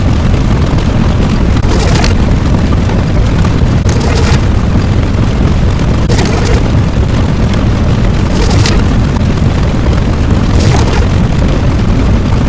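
Loud, continuous low rumbling sound effect, with a short brighter surge about every two seconds.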